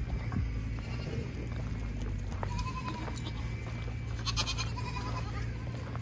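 Goats bleating a few times, short calls over a steady low rumble.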